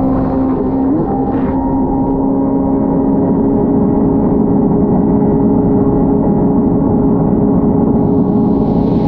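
Engine of a 180 hp Fast Powersports F1 jet ski held at a steady throttle under way, its pitch unchanging, over a rush of water. A hiss swells near the end.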